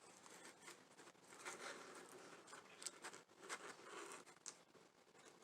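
Near silence with faint handling sounds: light clicks and soft rustling as small craft hearts are fitted into the holes of a hanging-heart garland.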